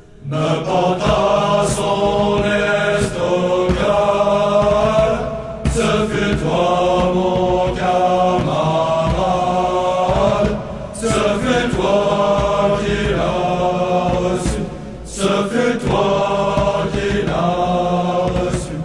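Slow chanted vocal music, sung in long held phrases that break off briefly about every five seconds.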